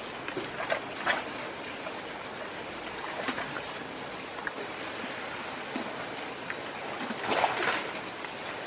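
Steady rushing background noise like running water, with a few short crackles, the loudest cluster about seven and a half seconds in.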